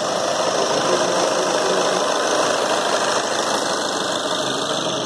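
Skoda Laura's engine running steadily with the bonnet open, during an HHO carbon-cleaning treatment.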